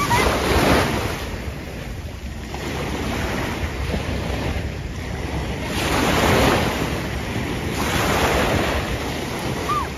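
Small sea waves washing through shallow water, swelling and easing every few seconds, with wind rumbling on the microphone.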